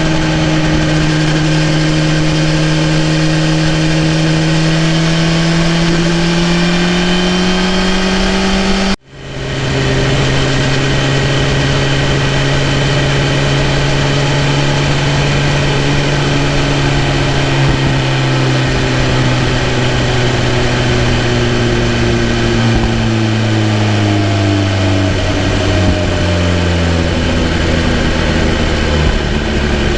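BMW S1000RR's inline-four engine running under way, its pitch rising gently, then breaking off abruptly for a moment about nine seconds in. Afterwards it returns at a lower pitch and the engine speed slowly drops over the rest of the stretch.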